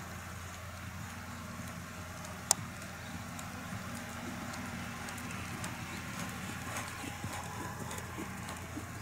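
Horse's hoofbeats cantering on a sand arena, with many light irregular thuds. A single sharp click about two and a half seconds in is the loudest sound.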